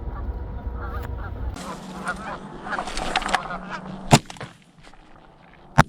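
Canada geese honking over the decoys, then two shotgun shots about a second and a half apart, the second near the end.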